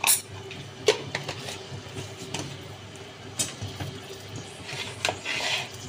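Cooking in a pan: several sharp taps of a metal spoon against the pan as spices go in, over a steady low hum, with a soft hiss near the end.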